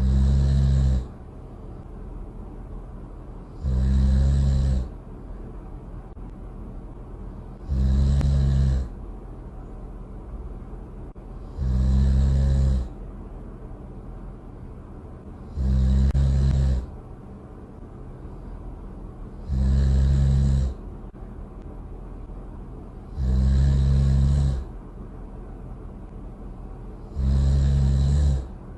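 Loud snoring, eight snores at an even pace, one about every four seconds and each lasting about a second, with a steady low background noise between the snores.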